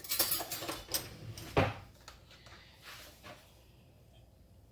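Kitchen handling noise: about a second of scraping and rustling, then a single loud knock, then a few fainter clatters.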